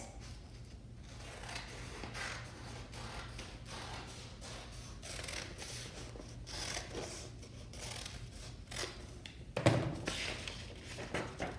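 Scissors cutting through a folded sheet of paper: a run of short, crisp snips with paper rustling between them, and one louder handling sound near the end.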